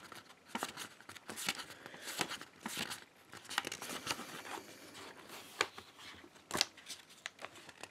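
Pages of a thick hardcover picture book being leafed through by hand: a quick run of paper rustles and flicks, with a couple of sharper page slaps in the second half.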